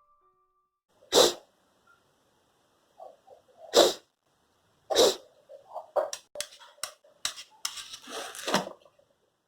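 Three loud, sudden sneezes, about one, four and five seconds in, with soft sniffing before the second. They are followed by a quick run of shorter sniffs and snorts.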